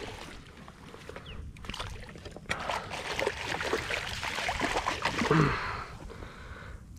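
Water splashing and sloshing against a kayak as a hooked tarpon thrashes while being landed by hand, with scattered small knocks. The splashing builds about halfway through and peaks just after five seconds, where a brief grunt is heard.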